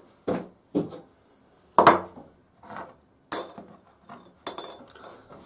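Screwdriver and small metal screws knocking and clinking: a string of separate clicks and knocks, with bright metallic clinks a little over three seconds in and again about four and a half seconds in.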